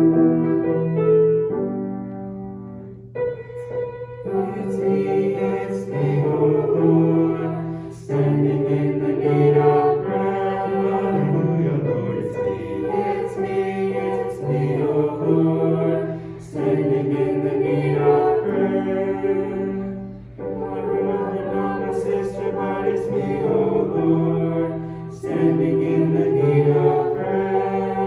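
A choir singing a slow hymn in long held phrases, with short breaks between phrases.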